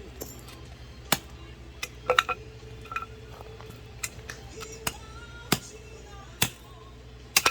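Firewood being split with an axe: a series of sharp knocks and cracks, about one a second at irregular spacing, the loudest about a second in, two seconds in, five and a half seconds in and near the end. A steady low hum and faint music run underneath.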